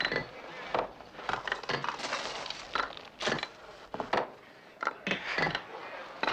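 A busy, irregular run of sharp knocks and cracks, about fifteen in six seconds, some ringing briefly, with faint voices behind.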